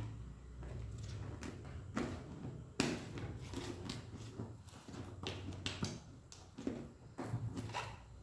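Irregular knocks, taps and clatters of containers and fridge drawers being handled during fridge organising, the sharpest about three seconds in, over a steady low hum.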